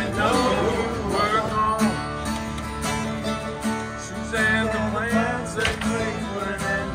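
An acoustic guitar and a mandolin playing a country-style tune together.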